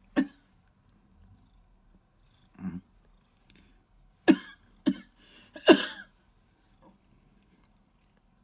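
A cat making five short, abrupt vocal sounds spread over several seconds, the last one a little longer.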